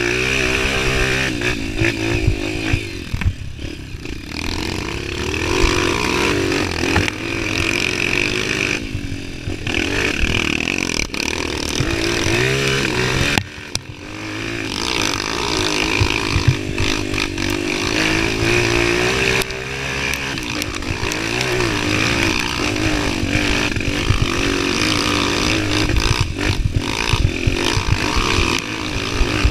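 Honda CRF230's single-cylinder four-stroke engine running under load on a dirt trail, its pitch rising and falling with the throttle. The engine note drops off briefly about thirteen seconds in, then picks up again, with knocks from the bumpy track throughout.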